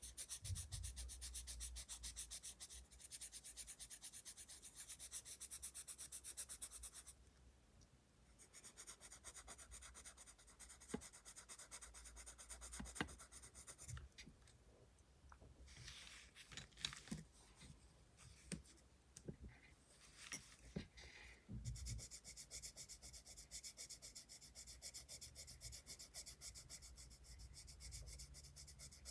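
Colored pencil shading on sketchbook paper: faint, rapid back-and-forth strokes of lead scratching the page. The strokes come in stretches, pausing about a quarter of the way in and picking up irregularly before running steadily again in the last third.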